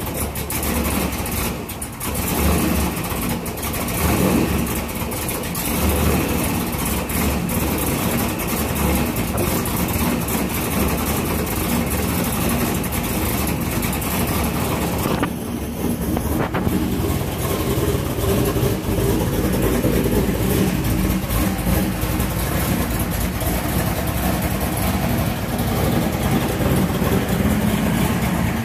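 1998 Corvette C5's LS1 V8 with a big stage 2 camshaft, not yet tuned, running at idle. The sound briefly drops about halfway through.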